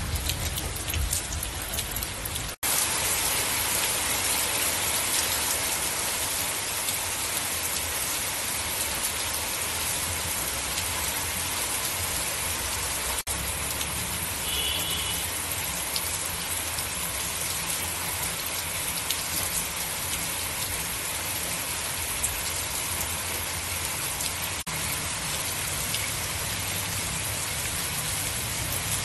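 Heavy rain falling steadily on a wet street, an even hiss of drops, with momentary breaks about two and a half, thirteen and twenty-five seconds in.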